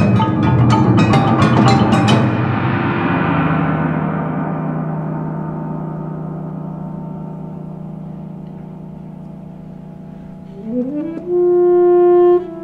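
Percussion ensemble playing a loud passage of rapid struck notes that breaks off about two seconds in, leaving the instruments ringing and slowly fading. Near the end a saxophone slides up into a loud held note.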